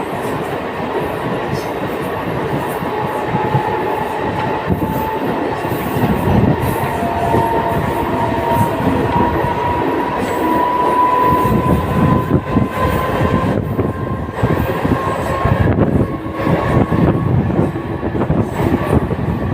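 Mumbai suburban non-AC electric local train running at speed, its wheels rattling over the track, with a faint high whine that rises slightly in pitch for several seconds in the first half.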